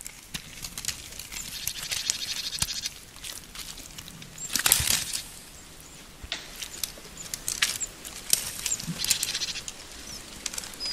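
Red deer stag browsing rose hips off a wild rose bush: rustling branches and crackling twigs and hips, loudest in a burst about halfway through.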